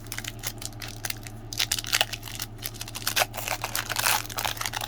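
Crinkling and rustling from a trading-card pack's wrapper and the cards being handled, a rapid irregular run of crackly rustles.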